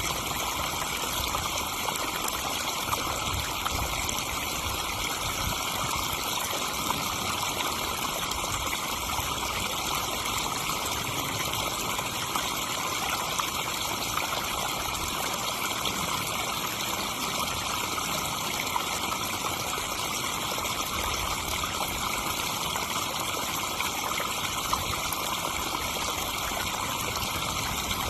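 Backyard pond waterfall: water splashing and trickling steadily into the pond.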